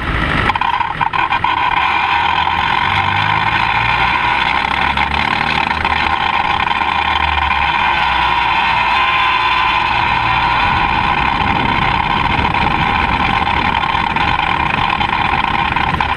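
Rover K-series VVC engine of a Mini running at low revs as the car drives along, under a steady loud hiss and a constant whine-like band of road and wind noise. There is a short jolt of knocks in the first half second.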